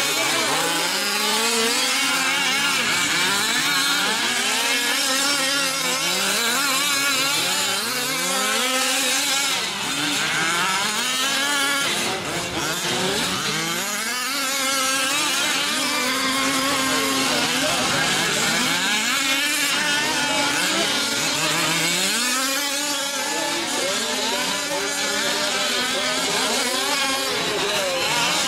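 Several 5th-scale RC trucks' small two-stroke gas engines racing together, their pitches rising and falling over and over as the drivers work the throttles.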